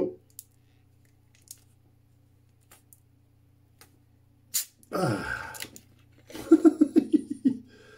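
Screw cap of a brown plastic bottle of beer being twisted open: faint ticks, a sharp crack about four and a half seconds in, then a hiss of escaping carbonation. Near the end a man's voice makes a run of short, quick sounds, the loudest part.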